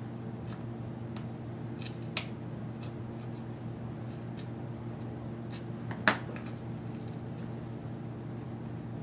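Black pry tool working at a MacBook Air speaker and its cable connector: scattered small clicks and taps, with one sharp snap about six seconds in. A steady low hum lies under it all.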